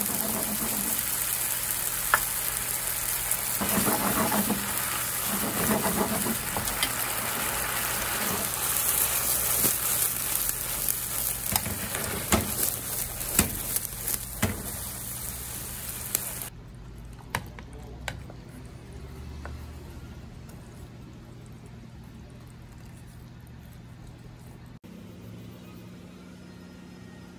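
Shrimp spaghetti sizzling in oil and pasta water in a frying pan, with sharp knocks as the pan is tossed. The sizzle cuts off suddenly about sixteen seconds in, leaving a quieter stretch with a few light clicks.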